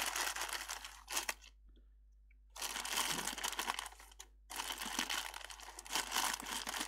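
Small clear plastic bag crinkling as hands open it and handle the dispensing tips inside, in three spells with short pauses about one and a half and four seconds in.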